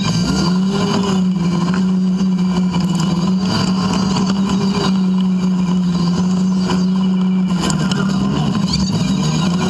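Polaris RZR 570 side-by-side's single-cylinder engine running under fairly steady throttle while driving, its pitch holding even with small rises and dips.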